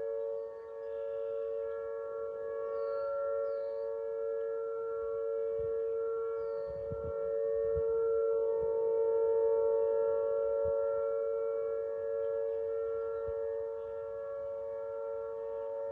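Outdoor tornado warning siren sounding its steady alert tone, two close pitches together, for a scheduled tornado drill rather than a real warning. It swells a little louder about halfway through. Small birds chirp faintly in the first few seconds.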